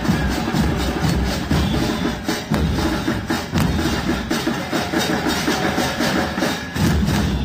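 Drum-heavy background music with a steady beat.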